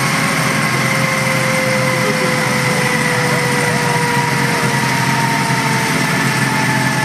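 Sport motorcycle engine running steadily on a chassis dyno, with a high whine that sinks slowly in pitch.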